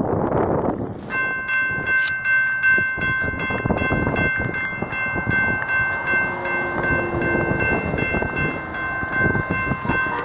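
Norfolk Southern SD60E locomotive's air horn sounding one long chord, starting about a second in and held nearly to the end. Under it is the rumble and clatter of the fast-moving train going by.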